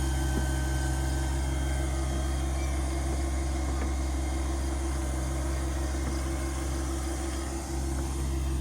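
A small engine idling steadily, a low, even hum.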